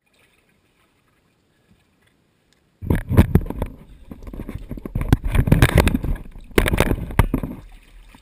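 Near silence for almost three seconds, then loud handling noise of an action camera being picked up and carried: rubbing, bumps and sharp knocks against its housing, easing off near the end.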